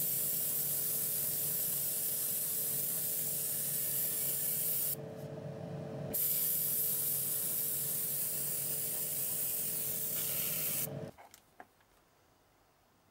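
Paint spraying in a steady hiss onto a small diecast toy part, over a steady hum. The spray breaks off for about a second around five seconds in, resumes, and cuts off suddenly about eleven seconds in.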